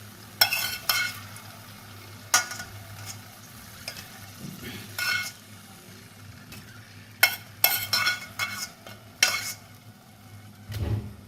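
Fried garlic cloves being lifted out of hot olive oil: a utensil scrapes and clinks about ten times against the frying pan and bowl, over light sizzling. A duller knock comes near the end.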